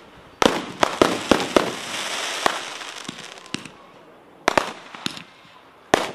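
Aerial fireworks going off. First comes a quick string of bangs over crackling for about three seconds. After a quieter spell there are a few single bangs, and a loud one near the end.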